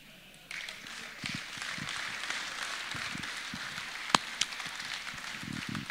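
Audience applauding, starting about half a second in, with one sharp knock about four seconds in.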